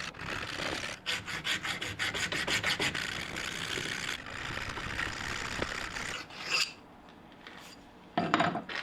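Hand filing of a metal part, with quick repeated strokes for about six seconds before stopping. A short clack follows, then a louder knock near the end.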